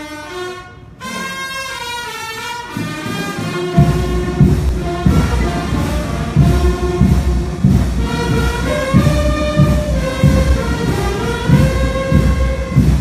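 Church brass band playing a hymn to Saint Joseph: brass melody and held chords, with a steady low beat joining about four seconds in.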